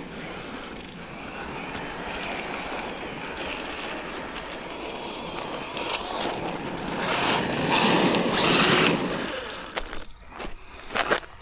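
Traxxas Maxx V2 RC monster truck running on loose gravel, a steady rush of tyres and drivetrain that swells louder for a couple of seconds before dropping away, followed by a few sharp clicks.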